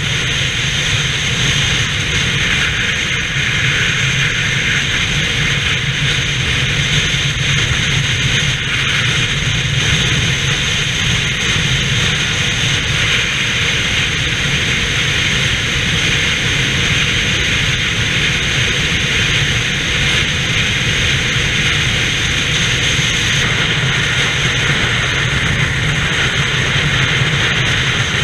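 Steady rush of wind and tyre noise at highway speed, with wind buffeting the microphone and a low hum underneath, unchanging throughout.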